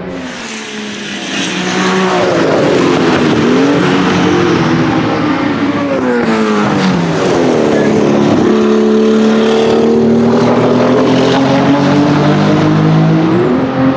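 Porsche 935 K3's turbocharged flat-six racing engine at speed, its pitch rising and falling through the gears. It falls steeply about six to eight seconds in, then climbs steadily under acceleration, with a quick drop near the end.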